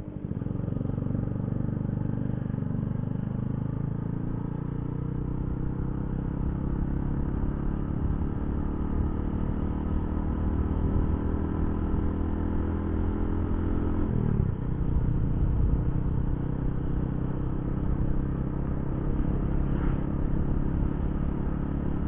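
Yamaha Jupiter Z1 motorcycle's small single-cylinder four-stroke engine running while riding, over a steady rumble of wind. Its pitch climbs slowly, then drops suddenly about fourteen seconds in and carries on lower.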